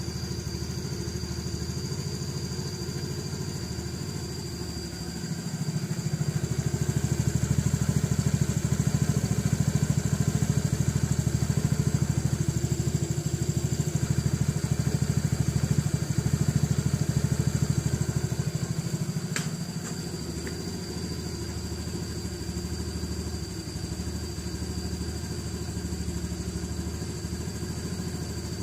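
Honda Beat scooter's single-cylinder four-stroke engine running with its CVT belt transmission noisy, the CVT louder than the exhaust. It runs louder from about five seconds in until just before twenty seconds, where a single sharp click is heard, then settles back.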